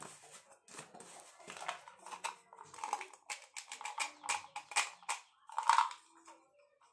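Small plastic jar handled and twisted open by hand: a run of irregular clicks and scrapes of the plastic cap and jar, the loudest a little before the end.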